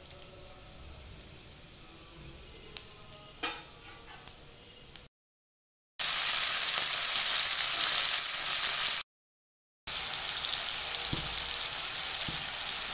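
Cumin seeds crackling faintly in hot oil in a steel kadhai, with a few sharp pops. After a brief break, cauliflower florets drop into the oil and sizzle loudly, then go on with a steady frying sizzle.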